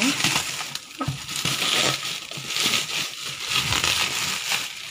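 Clear plastic and bubble wrap crinkling and rustling in irregular bursts as hands pull and crumple it off the air cooler.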